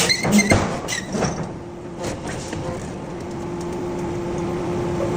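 Forging-shop machinery: several sharp metal knocks and clanks in the first second and a half, then a steady machine hum with a held tone.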